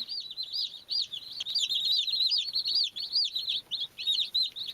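A group of baby chicks peeping continuously, many short high arched chirps overlapping several times a second.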